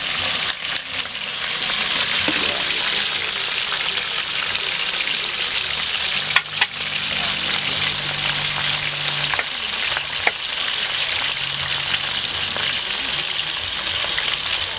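Whole fish shallow-frying in hot oil in a frying pan, the oil sizzling and spattering steadily. A few sharp clicks come near the start and about six seconds in.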